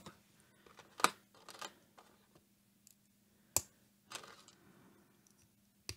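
Small plastic LEGO pieces being handled and pressed together: a sharp click about a second in and another a little past the middle, with soft rustling of the parts between.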